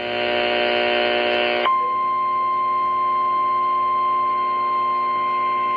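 Emergency Alert System attention tone heard over a radio stream, heralding a severe thunderstorm warning. A harsh, buzzy tone lasts the first second and a half or so, then changes to a single steady high tone that holds.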